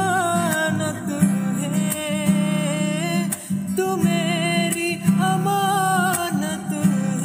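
Acoustic guitar strummed in steady chords while a young man sings held, wavering notes with vibrato.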